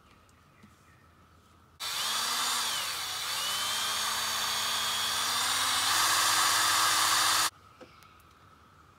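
Power drill spinning a stirring rod in a plastic mixing cup of paint, mixing in the hardener. It runs for about six seconds with a steady whine that dips briefly once, steps up near the end, then cuts off suddenly.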